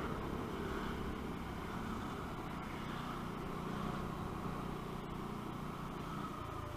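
Small 125cc motorcycle engine running steadily while riding, mixed with wind and road noise.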